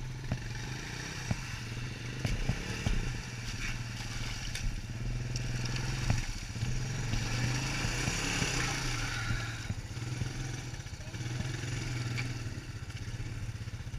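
Honda ATV engine running at low speed as the four-wheeler wades through muddy water, with a rush of splashing about halfway through and scattered knocks and clatter.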